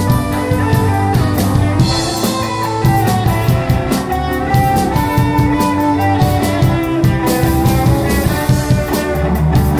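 Live rock band playing an instrumental passage: a semi-hollow-body electric guitar plays held and changing notes over a drum kit with a steady run of cymbal and drum strikes.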